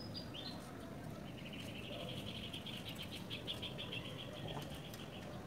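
Small wild animal calls: a few short high chirps at the start, then a rapid pulsed trill lasting about four seconds.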